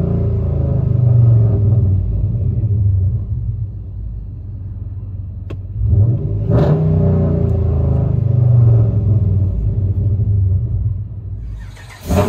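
2011 Ram 1500's 5.7-litre Hemi V8 revved in park through long-tube headers, high-flow cats and a Dynomax Race Bullet exhaust. The revs fall back to idle in the first few seconds, then a sharp blip about six seconds in holds for a few seconds before dropping back toward idle.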